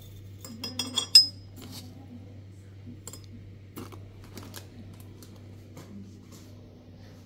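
Hard objects clinking, with a bright ringing like metal or glass: a quick run of clinks about a second in, the last of them the loudest, then a few lighter scattered knocks.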